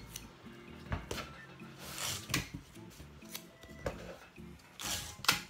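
Hands rubbing and pressing a fabric-covered cardboard box and its masking tape: several short, dry rustles and scrapes of paper and fabric, the last one near the end the loudest.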